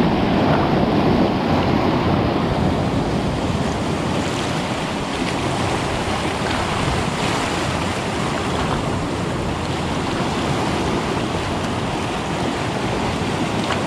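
Sea surf washing and breaking over a rocky shore, a steady rush with wind buffeting the microphone.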